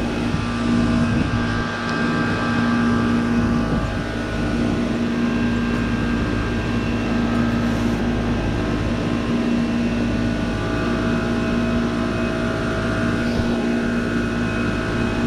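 2006 Goodman CPLE heat pump running through a defrost cycle: a steady compressor hum with several steady tones above it.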